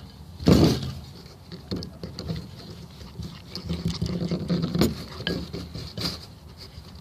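Slime being mixed by hand after borax solution is added: irregular wet squelching and scraping, with a louder burst about half a second in.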